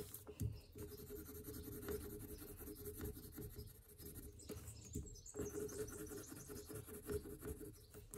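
Coloured pencil scratching on paper in faint, irregular strokes, colouring in a drawing.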